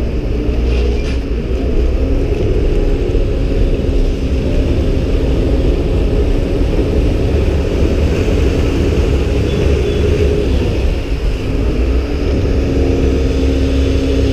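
Vaporetto water bus's diesel engine running steadily under way, a low rumble with a steady hum, over the churn of its wake.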